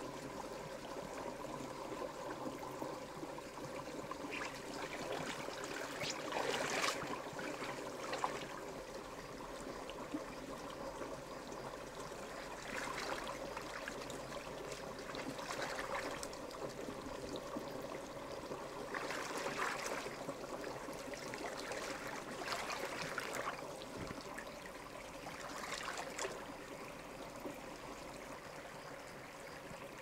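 Shallow river water running and trickling steadily, with louder surges of water noise about six times, a few seconds apart.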